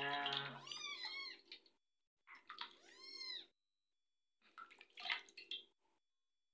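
A young kitten meowing three times in short, high, arching cries while being bathed in a sink. The sound of running water fades out within the first second or two.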